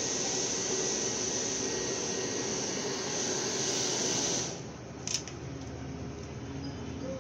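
Hair dryer blowing steadily, then switched off about four and a half seconds in; a single sharp click follows a moment later.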